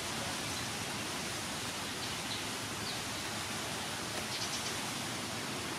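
Steady, even outdoor background hiss of a rural garden, with a few faint high chirps.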